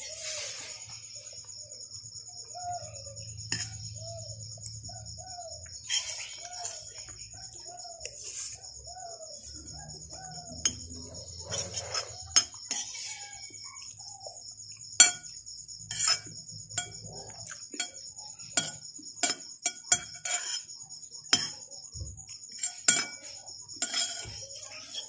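A spoon clinking and scraping against a ceramic plate while eating, sharp clicks that come more often and louder in the second half. Under it a steady high insect chirring, and in the first half an animal calling in a run of short rising-and-falling notes.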